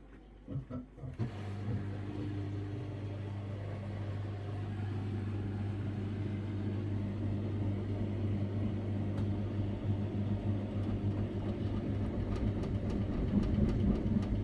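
Samsung Ecobubble washing machine with a digital inverter motor starting its drum turning again after a pause. A few soft knocks come about a second in, then a steady low hum that grows gradually louder as the drum speeds up towards a spin.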